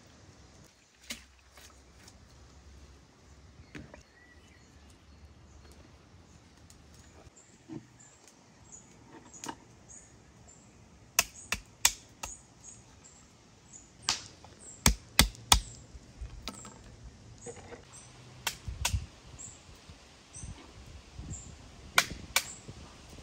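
Walnuts being cracked with a stone on a wooden stump: sharp cracks in quick groups of two or three, starting about halfway through. Small birds chirp high in the background throughout.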